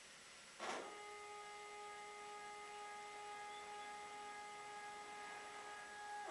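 CNC foam cutter's stepper motors running at a steady pitch as the machine traverses, a constant multi-note whine. It starts with a short rush of noise about half a second in and stops with another at the end.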